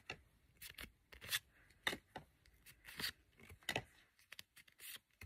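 Pokémon trading cards sliding and flicking against each other as they are moved one at a time through a hand-held stack: faint, irregular short rustles and clicks.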